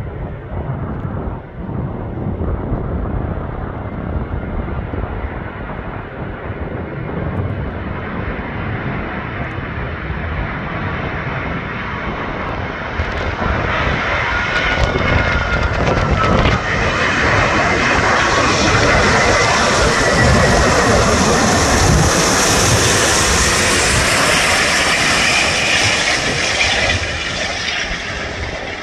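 British Airways Airbus A380-841 on final approach, the noise of its four Rolls-Royce Trent 970 engines growing much louder about halfway through as it passes close. A faint whine bends up and down in pitch as it passes. The sound eases off a little near the end.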